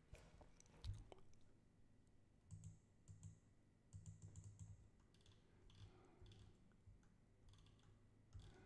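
Faint clicks of a computer mouse and keyboard, coming in a few short clusters.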